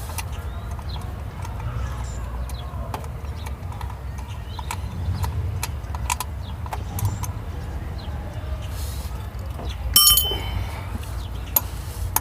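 Scattered metallic clicks and clinks of hand tools and parts being handled, with one sharp, ringing clink about ten seconds in, over a steady low rumble.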